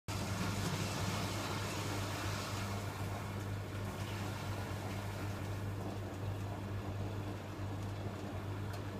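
Electrolux EWF12108W washing machine running its distribution rinse: a steady motor hum with a hiss that is strongest at first and fades about three seconds in.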